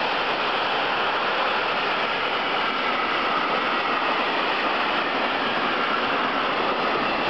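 Container freight train rolling past: a steady, continuous noise of the wagons running on the track, with faint high whining tones a little plainer near the end.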